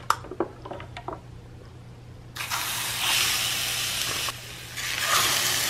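Wet haddock fillets hissing and sizzling as they are laid on the hot plate of a Dash 8-inch electric griddle. The sizzle starts suddenly about two and a half seconds in, drops briefly, and surges again near five seconds as the second fillet goes down.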